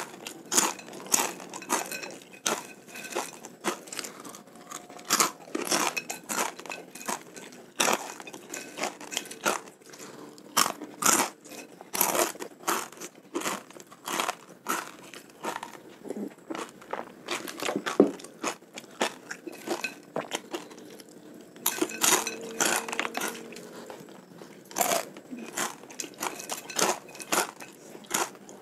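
Close-miked crunching and chewing of crispy fried macaroni snack, sharp irregular crunches coming in quick runs as mouthfuls are bitten and chewed.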